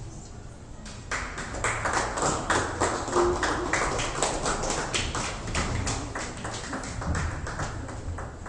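Scattered hand clapping from a small group, starting about a second in as many quick, irregular claps.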